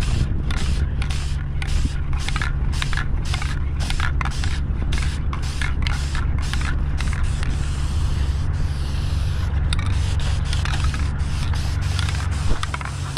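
Aerosol spray-paint can hissing in many short bursts, two or three a second, with one longer spray of about two seconds about two-thirds of the way through. A steady low rumble runs underneath.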